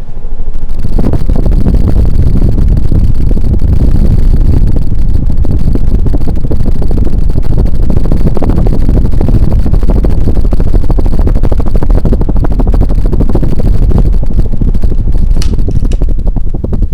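Air blown by a Homestead Whisperfan I ceiling fan buffeting the microphone: a loud, rough, low rumble of wind noise that starts abruptly and stops near the end.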